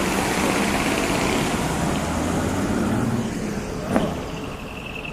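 Large truck engines running steadily, with a single sharp knock about four seconds in.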